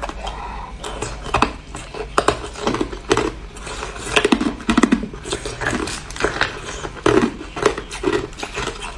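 Hard clear ice cubes being chewed in the mouth, a close, busy run of crisp cracks and crunches throughout.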